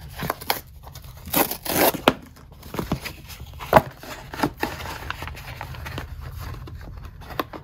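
Cardboard mailer envelope being torn open by hand: irregular tearing and rustling of stiff paper, with a sharper rip a little under four seconds in.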